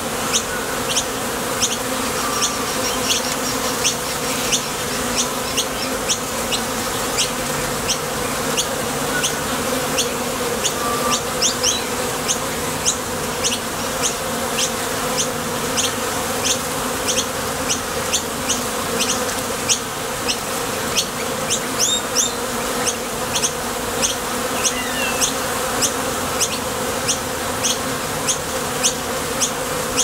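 A colony of honeybees humming at the entrance of a top bar hive, a steady, even drone of many wings as foragers come and go. Short high ticks sound over the hum about twice a second throughout.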